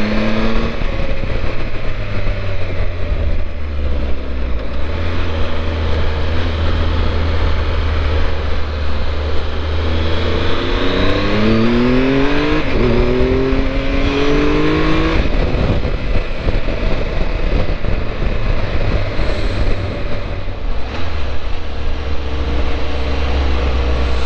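Steady wind rumble over a Triumph Tiger 1200's three-cylinder engine as it rides along; wind noise is strong because the screen is lowered. Between about ten and fifteen seconds in, the engine pitch rises as the bike accelerates, then drops at a gear change and rises again.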